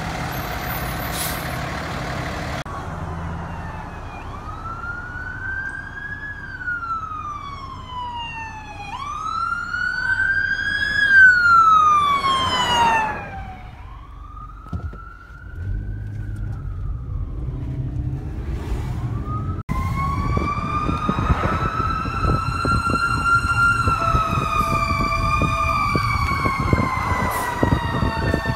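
Fire engine sirens wailing, sweeping up and down in pitch over several cycles, loudest about eleven seconds in, with the trucks' engines rumbling underneath. The sound changes abruptly twice, and in the last third a slower siren rises and falls over the engine noise.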